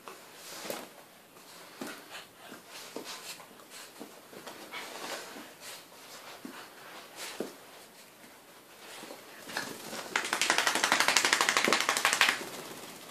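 Small wet dog rolling and rubbing itself on carpet after a bath: scattered rustles and soft knocks of fur and body against the pile, then near the end a loud burst of fast rasping lasting about two seconds.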